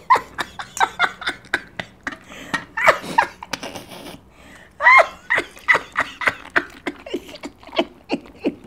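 A woman laughing: a run of quick, repeated ha's, about four a second, loudest about five seconds in.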